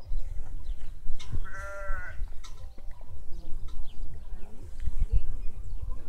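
A farm animal bleating once, a single wavering call of under a second about a second and a half in, over a steady low rumble.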